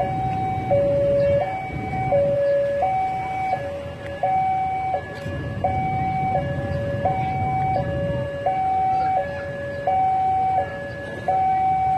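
Electronic two-tone railway warning alarm sounding over and over, alternating evenly between a low and a high tone, each held under a second, warning of an approaching train.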